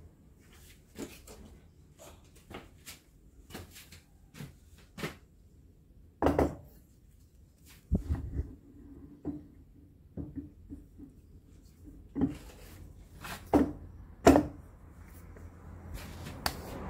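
Scattered metal clicks and knocks, with a few louder clunks, as a rotary table is handled and positioned on a milling machine's T-slotted table. A faint steady low hum runs underneath.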